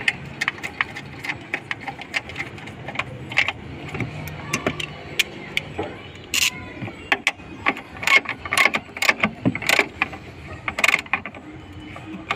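Socket ratchet wrench and metal hand tools working a bolt on a car's front door pillar: irregular sharp metal clicks throughout, with several longer, louder bursts of ratcheting in the second half.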